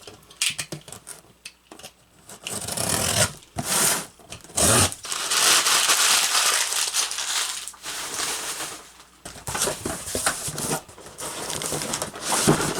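A shipping parcel being opened by hand: packing tape tearing and packaging rustling and crinkling in irregular bursts, with a long, loud tearing stretch in the middle.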